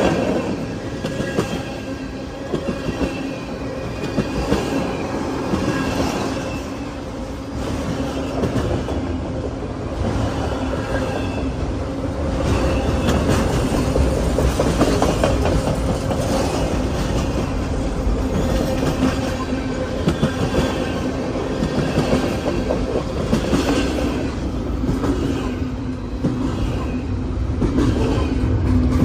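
Freight train cars rolling past close by: steel wheels clicking over the rail joints over a continuous rumble and drone, with faint high-pitched wheel squeal coming and going.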